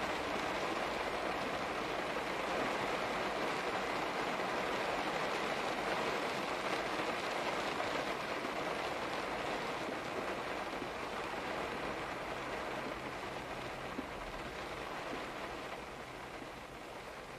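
Steady rain falling, an even hiss that eases off a little over the last few seconds.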